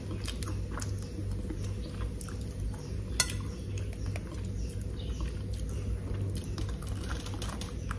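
A person chewing crunchy homemade groundpea (peanut) candy, with scattered faint clicks of a metal spoon and one sharper click about three seconds in, over a low steady hum.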